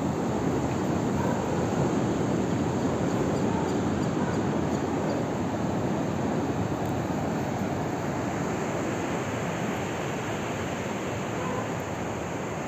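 Ocean surf breaking on a sandy beach: a steady rush of waves that fades a little toward the end.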